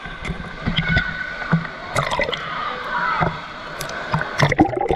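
Water sloshing and splashing in a pool, in irregular strokes with scattered knocks, and faint voices in the background.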